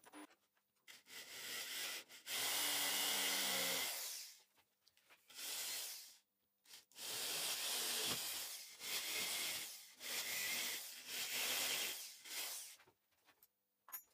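Handheld drill boring into the plywood hub of a centrifugal fan impeller, in several bursts of a second or two each with short pauses between.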